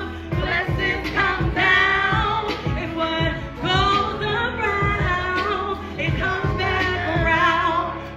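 A woman singing live into a microphone over a backing track with a steady bass line, amplified through the venue's speakers.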